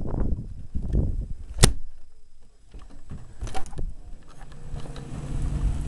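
Gusting wind buffeting the camcorder's microphone, with a single sharp click about a second and a half in. Small handling knocks follow as the camcorder is moved, and a low steady hum comes in near the end.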